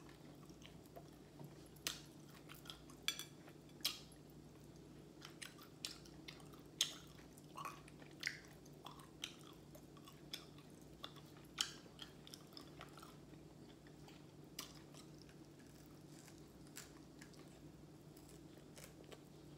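Quiet close-up chewing and crunching of fried chicken crust picked off the bone: scattered small crackles and clicks at an uneven pace, thinning out in the last few seconds.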